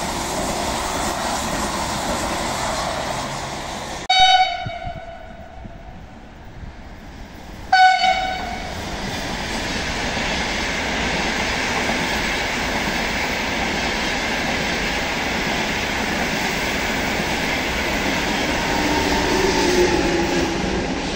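High-speed trains passing through a station at speed, with the steady noise of running gear. About four seconds in come two short train horn blasts, about three and a half seconds apart, from an approaching Frecciarossa. After the horns the rolling noise builds again, loudest near the end.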